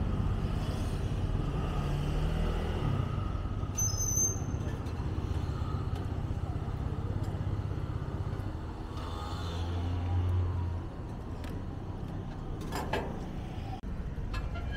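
Street traffic running past a roadside stall, a steady low engine rumble that swells louder about ten seconds in. Near the end come a few sharp knocks of a metal spatula against the steel griddle as a pancake is flipped.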